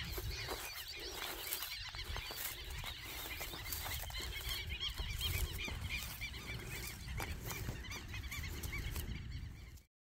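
A flock of birds calling in a dense, overlapping chorus of short high calls, over a low wind rumble. The sound cuts off suddenly just before the end.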